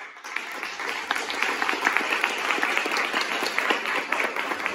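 Applause from an audience and the cast on stage, many hands clapping in a dense patter that starts suddenly, greeting an actor as he is introduced.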